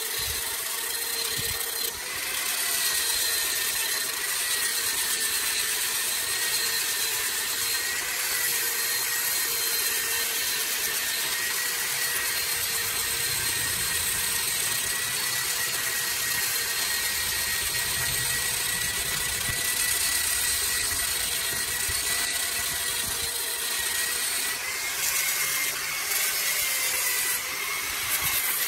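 Angle grinder with a sanding disc running against a turned bamboo piece spinning on a wood lathe: a steady high motor whine over sanding hiss, its pitch wavering slightly a couple of times as the disc is pressed on.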